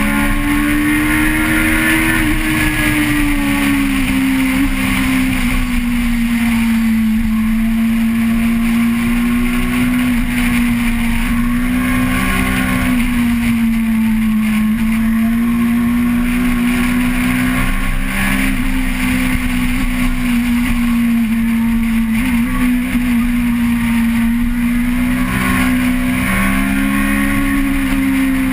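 Vehicle engine heard onboard, running at high, fairly steady revs. Its pitch rises and falls gently with throttle, over a constant rush of wind and road noise.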